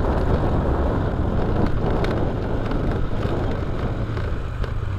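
Motorcycle engine running steadily as the bike is ridden, with wind noise on the microphone.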